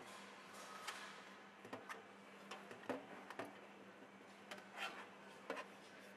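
Vending machine's hinged delivery flap being pushed open and a hand feeling around in the pickup bin: scattered light clicks and taps of plastic, over a faint steady low hum.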